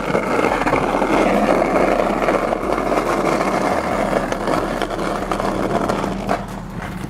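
Skateboard wheels rolling over rough, cracked asphalt, a steady loud rumble with a couple of light clicks near the end.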